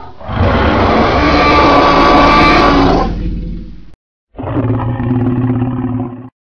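Dinosaur roar sound effect: one long roar lasting about three and a half seconds, then after a short break a second, lower and steadier roar of about two seconds.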